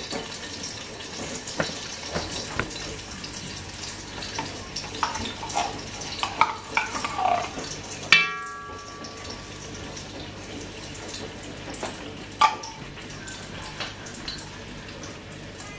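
Tomato paste sizzling gently in hot oil in a pot on low heat, with a metal spoon scraping and clinking against the tin and the pot. One sharper, briefly ringing clink comes about eight seconds in, and another near the end.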